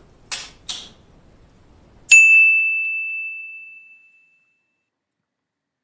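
A single bell-like ding about two seconds in: one clear high tone that rings out and fades away over about two seconds. Before it come two short, sharp hissy sounds.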